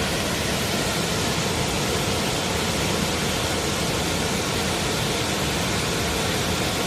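Waterfall on a mountain stream pouring steadily into its pool: a constant, unbroken rush of falling water.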